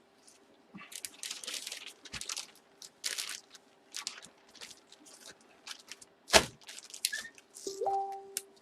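Plastic packaging rustling and crinkling in irregular bursts as items are handled and bagged, with one sharp knock about six seconds in and a brief squeak near the end.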